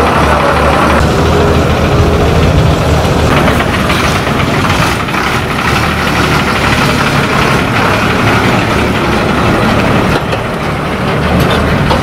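Diesel bus engine running close by: a steady, loud low throb.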